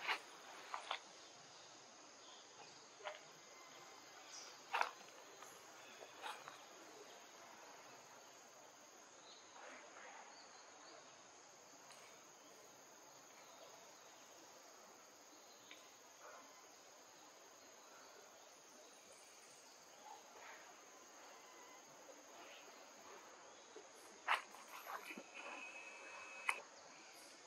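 Steady high-pitched insect drone, with scattered short clicks and knocks, a few more of them close together near the end.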